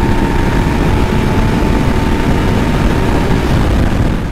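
Yamaha MT-09 three-cylinder motorcycle cruising at steady road speed: a low engine drone under heavy, steady wind rush on the mic. A faint steady whine fades out near the end.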